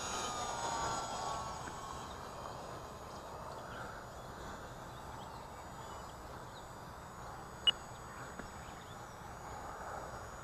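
An E-flite UMX Pitts S-1S micro RC biplane's electric motor and propeller whining in flight, the pitch sliding down as it fades over the first two seconds. Then only faint outdoor background remains, with one sharp click about seven and a half seconds in.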